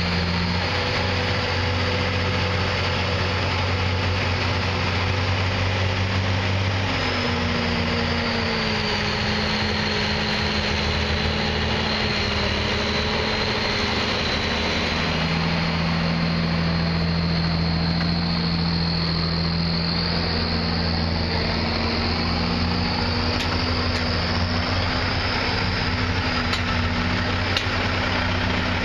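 Engines of military trucks, a Deuce and a half and an M818 5-ton tractor, running slowly as they crawl past one after another on a dirt trail: a steady deep drone whose note changes as each truck goes by.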